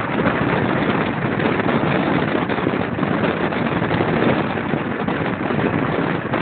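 Wind buffeting the microphone at speed, over a steady rush of wheels rolling on asphalt.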